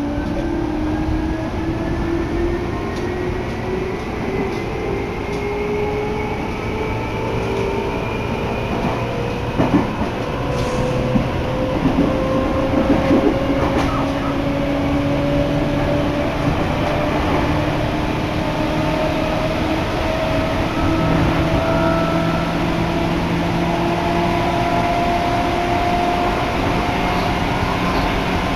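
Electric commuter train pulling away and gathering speed, heard from inside the car. Its motors whine in several tones that rise slowly in pitch and level off near the end, over a steady running rumble, with a few sharp clicks from the wheels about halfway through.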